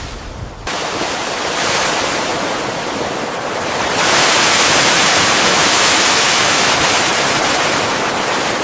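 Loud rushing sea water, like waves breaking, without any tone or rhythm; it comes in about half a second in, grows louder about four seconds in, and cuts off suddenly at the end.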